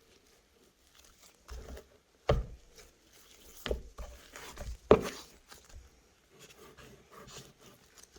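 A handful of dull knocks and handling sounds at irregular intervals, the loudest about five seconds in.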